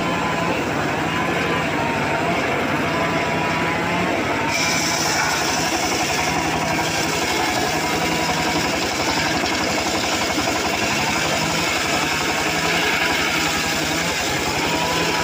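Homemade engine-driven circular saw bench running steadily while its blade rips along an acacia log. About four and a half seconds in, a high cutting sound joins the engine as the blade bites into the wood.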